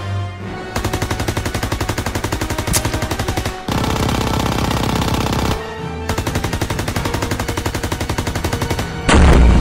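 Machine-gun fire sound effects in long, rapid automatic bursts, with a brief break about six seconds in. A loud explosion comes near the end.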